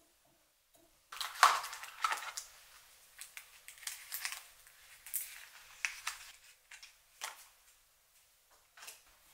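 Hands rummaging through a paper-covered cardboard box of incense, with paper packets and wrappers rustling and crinkling in a run of short, irregular rustles. The loudest rustle comes about a second and a half in.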